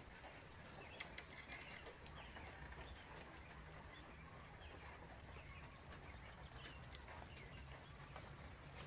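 Faint outdoor ambience after rain, with scattered drips and light birdsong.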